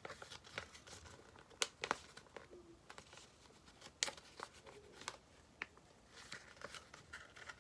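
A sheet of paper being folded and creased by hand: faint rustling with scattered sharp crackles as the folds are pressed.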